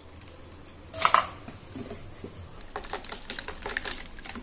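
A single sharp knock about a second in, then a spoon stirring ice cubes in a bowl of juice, heard as a quick run of light clinks and clicks.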